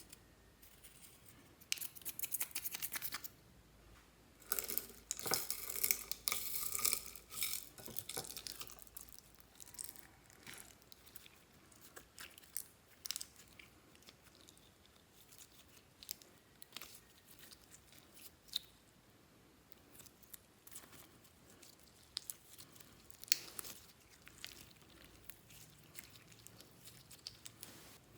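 Clear slime being worked by hand, giving sticky crackling and popping clicks. The crackling is densest about two seconds in and again from about five to eight seconds in, then thins to scattered clicks.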